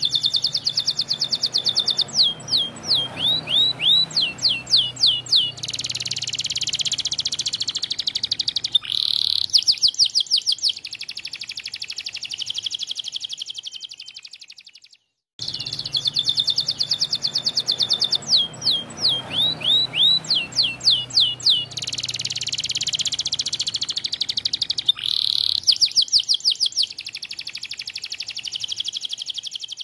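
White domestic canary singing a long, loud song of rapid trills, rolling passages and falling whistled notes. The same song sequence plays twice, broken by a brief silence about halfway through.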